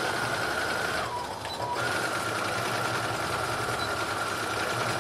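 Electric sewing machine running steadily, stitching forward and backwards several times over overlapped elastic ends to join them. Its motor whine dips lower for a moment about a second in, then holds steady.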